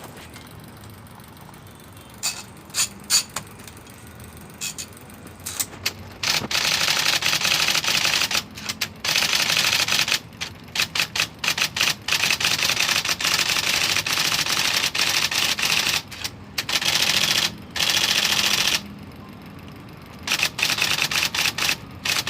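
IBM Selectric III electric typewriter typing. After a few scattered keystrokes it breaks into long, fast runs of type-ball strikes, broken by short pauses.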